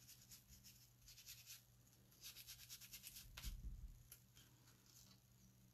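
Faint, quick dabbing and swirling of a foam ink-blending tool on card through a stencil, in two runs of rapid strokes, with a single small knock about three and a half seconds in.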